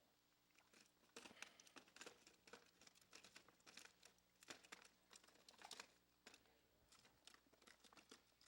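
Near silence with faint, irregular crinkling and rustling, a scatter of small crackles.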